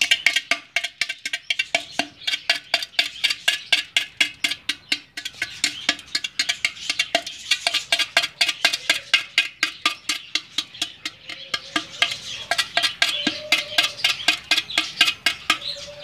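Rod chipping at the edge of a hole in an unglazed clay pot held in the hand: rapid, even tapping, about four to five strokes a second, widening the hole in the pot's wall.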